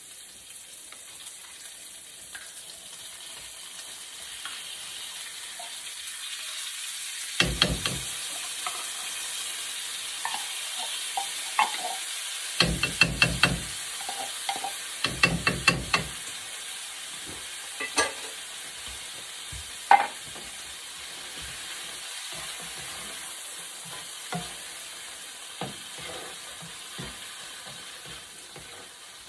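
Onion and garlic sizzling steadily in a frying pan, with a run of loud knocks and clatters through the middle as canned corned beef is knocked out of its tin into the pan and a spatula works it in.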